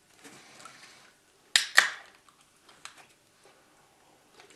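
A drink can's ring-pull snapped open about a second and a half in: a sharp crack and then a short fizzing hiss of escaping gas.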